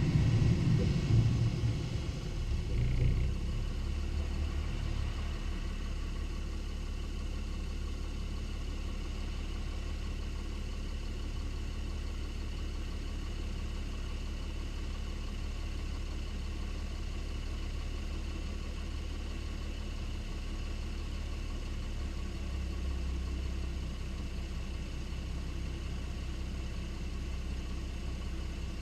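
Car engine, a Lexus IS250's 2.5-litre V6, running as a steady low drone. It is louder and uneven with a few rumbles in the first three seconds, then settles to an even hum.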